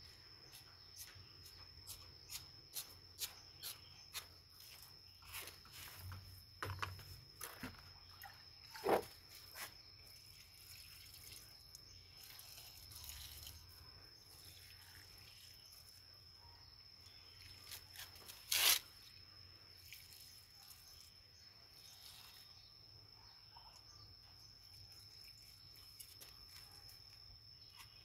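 Water scooped from a plastic bucket and poured over potted plants, with scattered knocks of the plastic scoop and bucket, the two sharpest about 9 and 19 seconds in. A cricket trills steadily at one high pitch behind.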